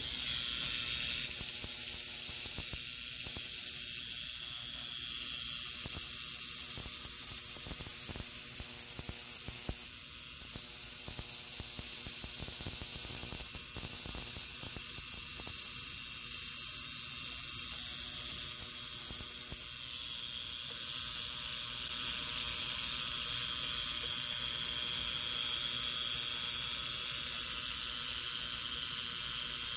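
Hand-held Tesla coil running, its high-voltage spark discharge giving a steady, high-pitched hiss that dips briefly twice.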